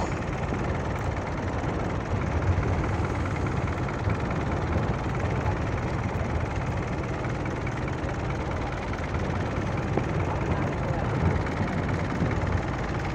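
Fishing boat engine running steadily with a low hum, under wind and water noise as the net is hauled in.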